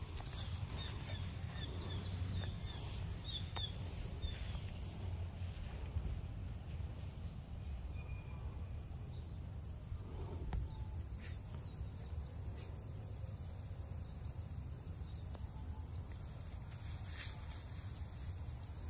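Open rice-paddy ambience: a steady low rumble, with a quick series of short high bird chirps in the first few seconds and a faint, steady high insect drone.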